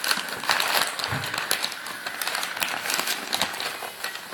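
Gift wrapping paper crinkling and rustling in irregular crackles as a present is handled and unwrapped.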